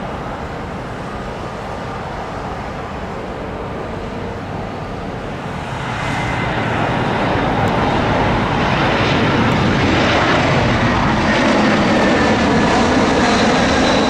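Jet airliner's engines: a steady rushing noise that grows louder about six seconds in as the aircraft comes closer, with a high whine on top.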